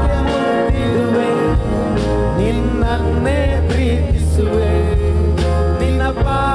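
A Kannada worship song: a voice singing over a steady bass line and drum beat.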